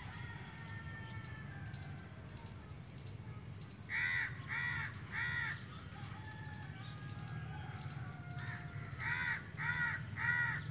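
A bird calling in two runs of short, evenly spaced calls: three about four seconds in, then four more near the end, over a steady low hum.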